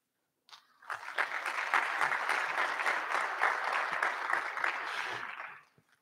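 Audience applauding. It starts about a second in, holds steady and dies away near the end.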